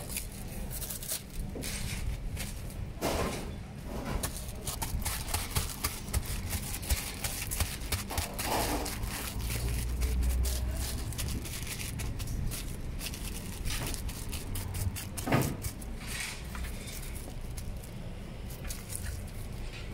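Crackling and soft tearing as jackfruit bulbs are pulled free of their stringy fibres by a hand in a crinkling plastic glove, with a few short louder noises and a low rumble near the middle.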